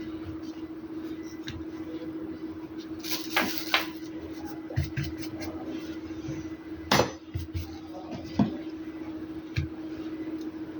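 Small hard objects being handled and set down on a hard surface: a few light knocks and clinks, the sharpest about seven seconds in, over a steady low hum.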